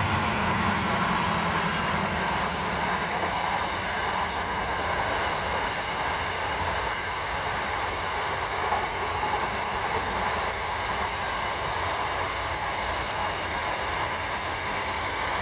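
A train passing at steady speed: a continuous rumble with a faint steady whine, holding an even level throughout.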